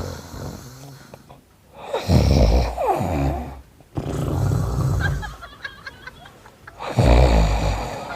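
A man deliberately fake-snoring, loud and exaggerated: three long snores a couple of seconds apart, the first sliding down in pitch.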